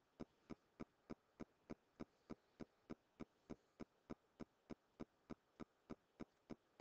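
Near silence with a faint, very regular ticking of sharp clicks, about three and a half a second.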